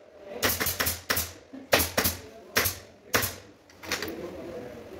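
Pneumatic upholstery staple gun firing staples into a sofa's back panel: a quick, irregular run of about eight sharp shots that stops about three and a half seconds in.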